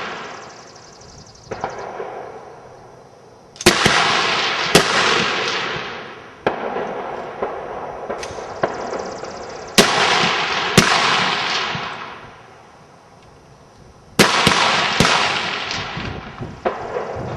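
Rifle shots from several shooters along a firing line, fired at irregular intervals, some alone and some two or three in quick succession. Each crack is followed by a long echoing tail that dies away over a second or two.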